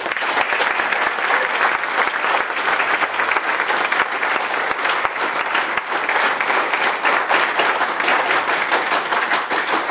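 Crowd applauding: dense, steady clapping that starts suddenly.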